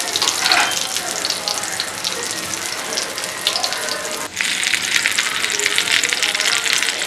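Whole masala-coated tilapia and curry leaves sizzling and crackling steadily in hot oil in a pan. The sizzle drops for an instant a little past four seconds in, then comes back louder.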